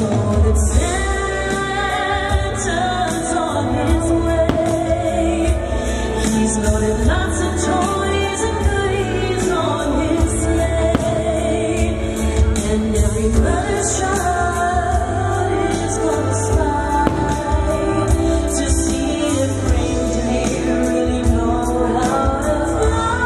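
Loud Christmas show soundtrack: music with singing voices carrying a melody over instrumental backing.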